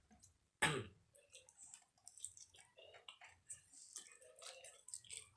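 Close-up chewing of crispy fried noodle-and-egg patty, with small crunchy clicks throughout and one sharp loud crunch about half a second in.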